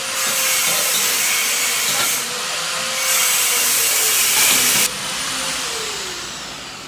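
Chicken and sauce sizzling hard in a wok over a gas burner, a steady loud hiss that grows brighter midway, then cuts back sharply about five seconds in and fades.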